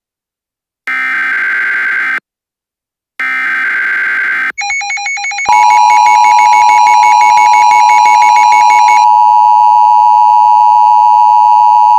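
Emergency Alert System SAME header: two buzzy digital data bursts, each about a second long with silence between, then a brief warbling tone. About five and a half seconds in, the NOAA Weather Radio warning alarm begins, a loud, steady single high tone. It signals that a warning broadcast is about to follow.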